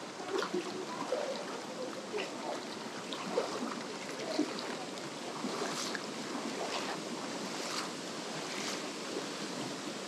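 Mountain stream water rushing over rocks: a steady wash of running water with faint scattered ticks and splashes.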